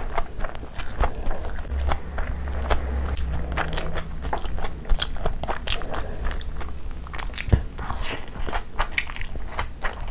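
Close-miked chewing and biting of a mouthful of food, a dense run of sharp irregular mouth clicks and smacks.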